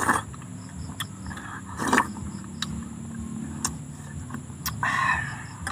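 Spoon and fork clinking and scraping against a metal frying pan while eating, with sharp clicks about once a second. A louder vocal sound is heard briefly near the end.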